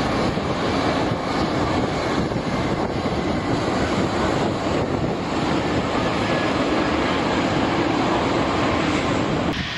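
Jet aircraft engines running loud and steady, a dense roar with a faint high whine, changing abruptly just before the end.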